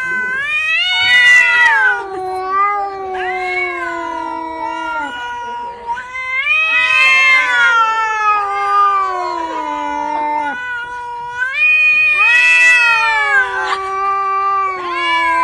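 Orange-and-white cat yowling: three long, drawn-out calls of four to five seconds each, each rising at the start and then sliding slowly down in pitch.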